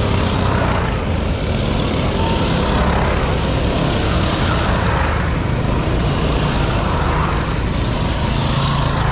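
Mini bike engines running as riders pass one after another on a dirt track, the sound swelling and fading every couple of seconds as each bike goes by.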